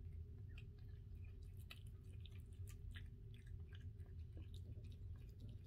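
Cat eating wet cat food off a plate: faint, irregular wet chewing and smacking clicks, over a low steady hum.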